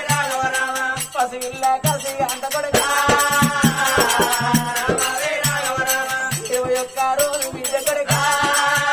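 Telugu Oggu Katha folk ballad music: a held, wavering melody line over a steady drum beat with rattling, jingling percussion.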